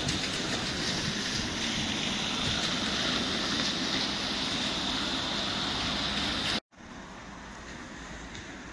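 Steady outdoor street ambience, an even hiss with no distinct events. It cuts out abruptly about two-thirds of the way through and comes back quieter.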